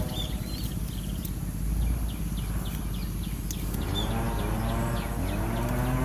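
Spotted dove cooing: low, drawn-out coos, one ending at the start and another beginning about four seconds in, with short high chirps of small birds repeating throughout.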